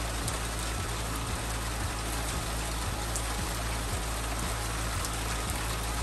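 Steady rain falling, an even hiss with no break, over a steady low hum.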